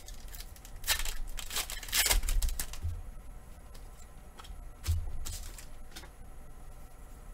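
Foil Pokémon booster pack wrapper torn open and crinkled: a crackling rustle about a second in that lasts about a second and a half. Then a handful of cards is handled, with another short crinkle about five seconds in.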